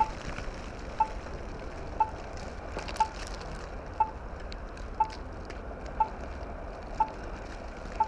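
Blizzard wind blowing steadily, rushing and rumbling on the microphone. A short, high electronic beep repeats once a second throughout.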